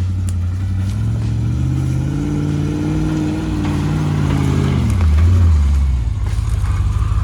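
A Land Rover 4x4's engine revs up under load, holds, and drops back to a low steady running note about five seconds in, as the truck works to climb a slick root with its lockers engaged.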